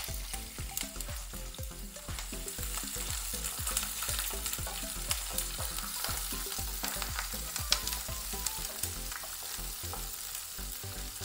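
Chopped onions and green chillies sizzling in hot sunflower oil in a nonstick pan, with many small crackles, while a wooden spatula stirs them and scrapes the pan.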